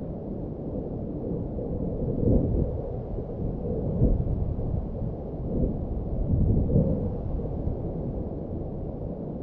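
Wind buffeting the microphone: a low rumble that swells in several gusts.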